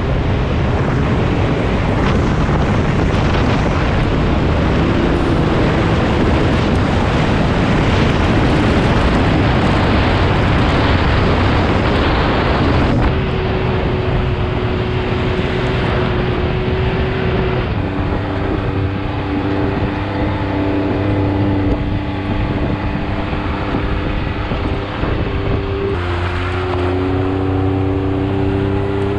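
Can-Am Maverick X3 X rc Turbo RR side-by-side driving on a dirt trail: its turbocharged three-cylinder engine running under way, with tyre and wind noise. About halfway through the sound changes to a steadier engine drone with a clear pitch, which rises a little near the end.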